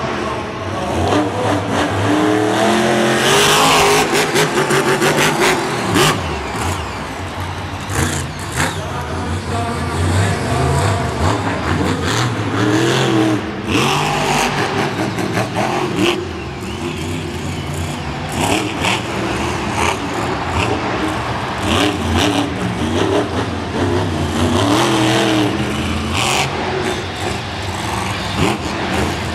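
Grinder monster truck's supercharged engine revving hard over and over, its pitch rising and falling with the throttle. Several sharp bangs come from the truck landing jumps and hitting crushed cars.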